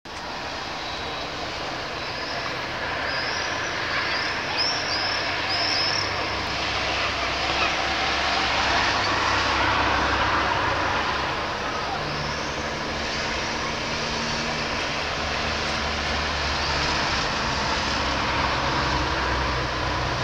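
Steady broad outdoor rumble of distant city and engine noise, with a few short high chirps about three to six seconds in.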